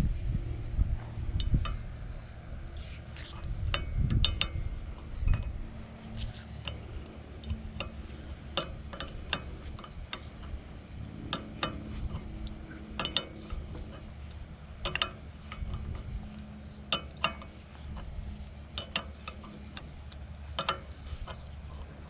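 Hand tools clicking and clinking on metal, ratchet-like, in short groups every second or two while hydraulic hose fittings on a backhoe are worked on, with a few heavier knocks in the first few seconds and a low hum underneath.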